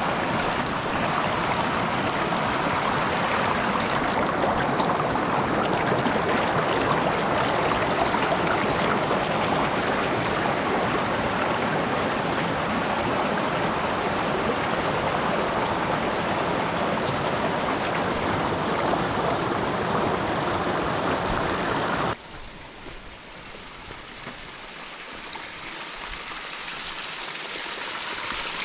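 Shallow mountain stream running over stones and pebbles, a steady rush of water. About three-quarters of the way through it cuts off suddenly to the quieter splashing of a small waterfall spilling down a rock face, which grows louder toward the end.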